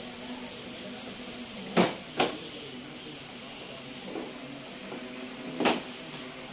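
Plastic front fairing panels of a Suzuki Burgman Street 125 scooter being pried off by hand. There are three sharp snaps as the clips let go, two close together about two seconds in and one near the end.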